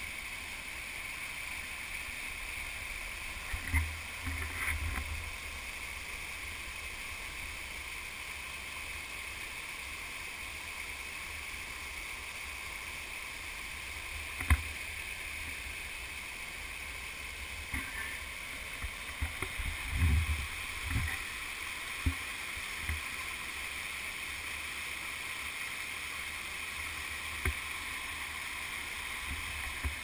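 Waterfall cascading over rock slabs: a steady rush of falling and splashing water. A few short low thumps break in now and then, the sharpest about halfway through.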